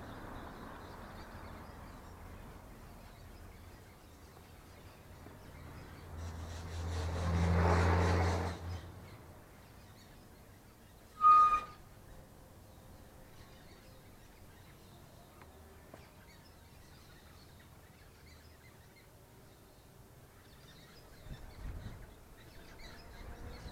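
Outdoor ambience with scattered faint bird chirps. A motor vehicle passes with a low hum that swells and fades about six to nine seconds in. About eleven seconds in there is a single short, sharp, loud tone.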